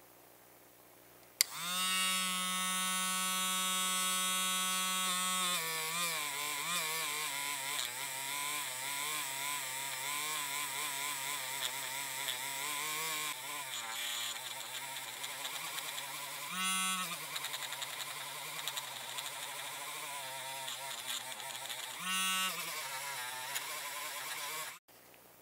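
Small handheld rotary tool with a felt polishing wheel, buffing the painted metal body of a diecast model car. It is switched on with a click and runs at a steady pitch for a few seconds. Then its pitch drops and wavers as the wheel works the paint, rising briefly twice, and it stops near the end.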